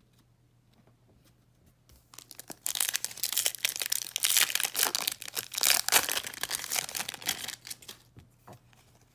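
A foil trading-card pack wrapper being torn open and crinkled by hand, a dense crackling that starts about two and a half seconds in and stops about a second before the end.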